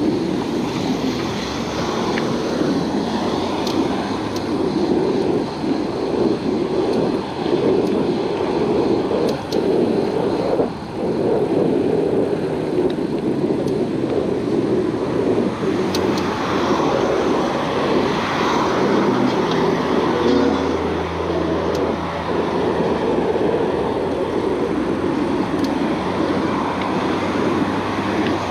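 Steady rushing noise of riding a bicycle along a road, made by wind over the camera microphone and the rolling of the tyres, with road traffic going past. A vehicle's low engine hum passes about twenty seconds in.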